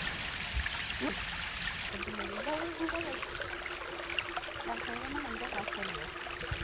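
A small stream trickling over stones. About two seconds in, a steady held tone with a wavering pitched line above it joins the water.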